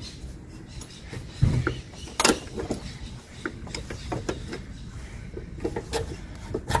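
Small cordless drill-driver running in short bursts as it drives a screw into a metal mounting bracket, with scattered knocks and clicks of the tool and screw being handled. There is a loud thump about a second and a half in and a sharp click shortly after.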